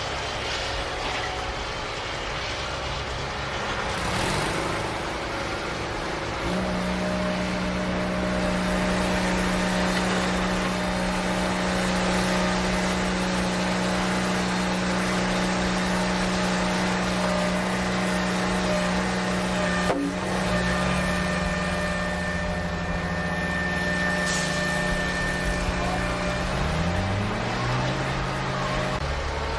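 Toy vehicle running with an engine-like hum: held tones that jump to a new pitch a few times and glide upward near the end, like a toy's revving sound effect.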